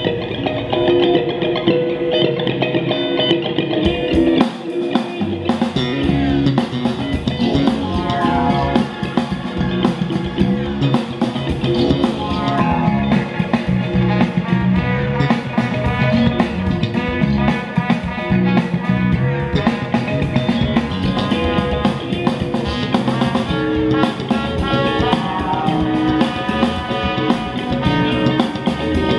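Guitar-led song with drums playing through a pair of bookshelf monitor speakers driven by a homemade TDA7265 stereo amplifier, as a listening test of the amp.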